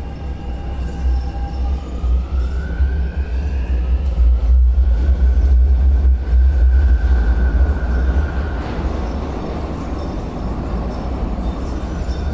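MTR South Island Line S-Train pulling out of the station, with a heavy low rumble. Its traction motors whine, rising in pitch over the first few seconds as the train speeds up, then hold one steady note and fade, leaving the rumble.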